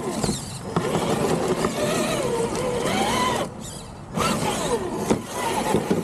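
Traxxas TRX-4 RC truck's electric motor and geared drivetrain whining, its pitch rising and falling with the throttle in several runs, with a short let-off a little past halfway.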